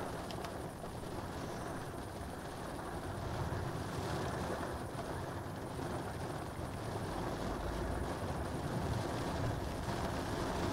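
Thunderstorm ambience: a steady low rumbling of wind that grows slightly louder, with a deeper rumble of distant thunder coming in about seven seconds in.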